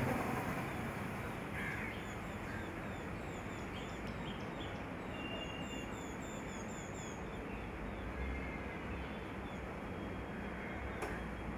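Steady outdoor background hum with small birds chirping faintly and high, a run of quick chirps through the middle, and a single sharp click near the end.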